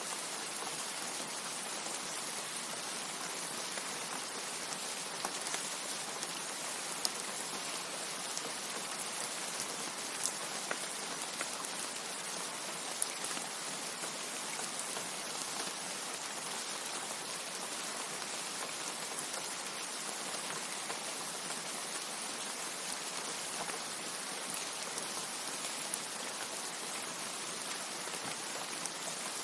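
Steady rain falling, an even hiss with a few sharp drop ticks standing out now and then.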